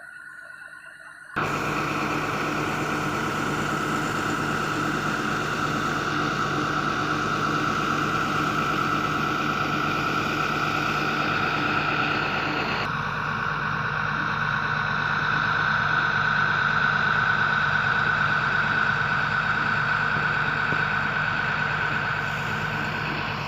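Excavator engine running steadily under a high whine, cutting in abruptly about a second and a half in.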